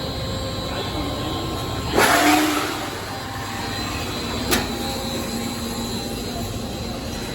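Mattress-making machinery running steadily in a factory, with a loud rushing burst about two seconds in and a sharp click about four and a half seconds in.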